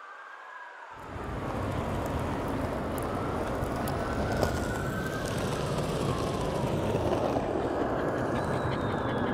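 A siren wailing, its pitch slowly rising and falling, joined about a second in by a loud, dense noise with a heavy low end.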